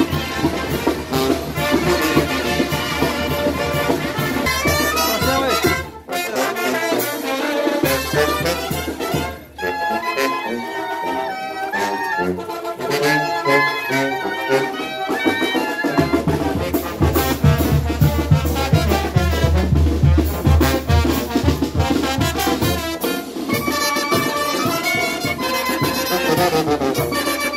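Live brass band playing a lively festive tune. The low bass parts drop out for several seconds in the middle, then come back strongly.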